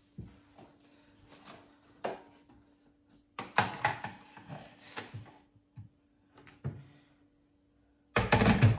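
Kitchen handling noise: a scattering of knocks and clatters as items, among them an electric kettle, are moved and set down on a worktop, busiest in the middle. A faint steady hum runs underneath, and a louder burst of noise comes near the end.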